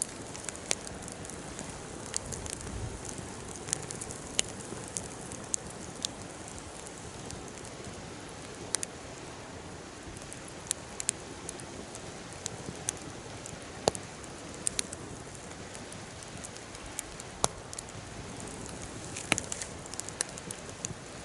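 Campfire burning, crackling with irregular sharp pops over a steady hiss.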